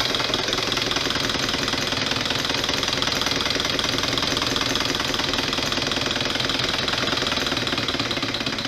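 Twin opposed solenoid engine running fast and steadily in four-stroke mode, its two solenoids clattering in a rapid run of knocks through the Scotch yoke. Over it is the whine of the motor driver's pulse-width modulation, whose pulse frequency falls in the audible range while the solenoids are energized.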